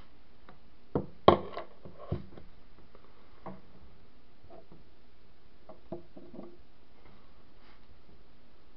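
A few sharp clicks and knocks in the first two seconds, then scattered faint ticks over a steady low hiss.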